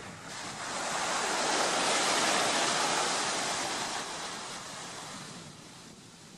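Ocean surf: a single wave washes in, swelling over about two seconds, then fades away.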